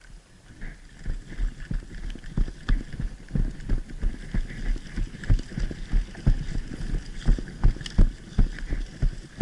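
Footsteps thudding at a brisk pace, about three a second, each step a deep, dull thump.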